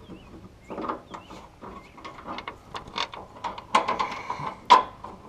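Hand socket ratchet clicking in short irregular runs as a gas-tank mounting bolt is worked in, with metal clicks and knocks; the loudest knock comes near the end.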